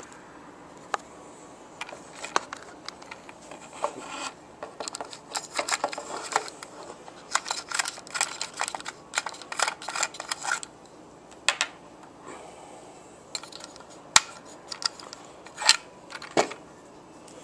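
Hands handling a plastic electronic-cigarette carrying case and its cartridges: a dense run of clicks, taps and rattles through the middle, then a few sharp single clicks near the end.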